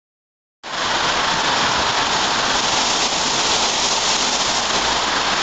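Torrential cloudburst rain pelting the street and roofs: a dense, steady hiss that starts abruptly about half a second in.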